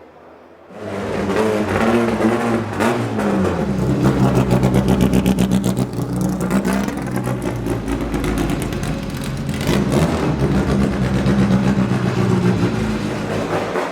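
Racing car engine running hard on a circuit, cutting in suddenly about a second in; the pitch drops around the third second and then holds high with further shifts in revs.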